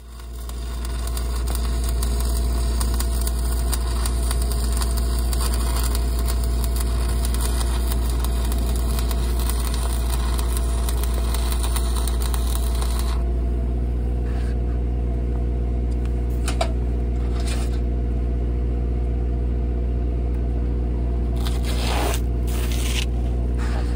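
Stick-welding arc burning steadily from a 3/32-inch 7018 electrode on a 6-inch steel pipe flange, stopping about halfway through. A steady low engine hum runs beneath throughout, with a few scrapes and clicks near the end.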